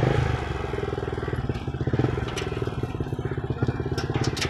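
Small single-cylinder motorcycle engine idling just after being started, a steady rapid putter, with a few sharp light clicks near the end.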